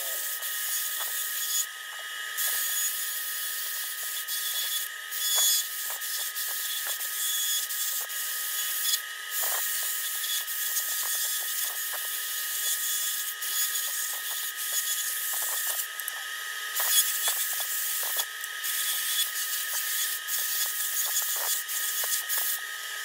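A die grinder with a long-shank burr running at a high, steady whine as it grinds out a port in a cast-iron Lincoln V12 flathead engine block, porting and gasket-matching. The whine dips briefly a few times as the burr is eased off the metal.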